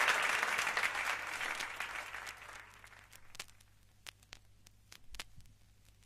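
Audience applause dying away over the first few seconds, then the quiet groove of a vinyl record between tracks, with scattered surface clicks and pops and a faint low hum.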